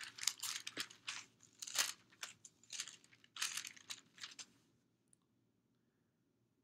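Paper pages being leafed through: a run of irregular crinkly rustles that stops about two-thirds of the way in.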